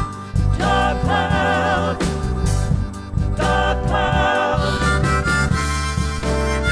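Blues harmonica solo over a full band backing, the harmonica playing sustained, wavering notes with vibrato during an instrumental break.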